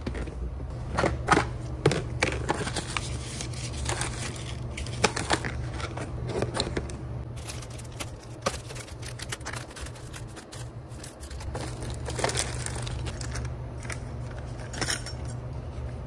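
Plastic storage tubs being handled and opened, and small plastic parts bags rustling and crinkling in a run of clicks and rustles, with small metal retainer clips clattering out of a bag near the end. A low steady hum runs underneath.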